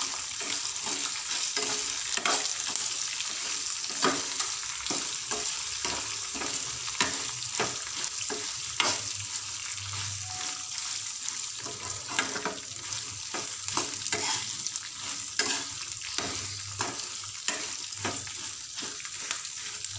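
Oil sizzling in a nonstick kadai as a tempering of peanuts, chana and urad dal, mustard seeds, green chillies, curry leaves and dried red chillies fries. A metal spatula stirs it, scraping the pan in frequent clicks.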